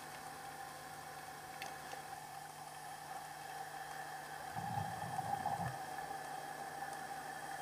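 Underwater ambience picked up through a camera housing: a steady hiss with a faint hum, a light click about one and a half seconds in, and a muffled low rumble lasting about a second a little past halfway.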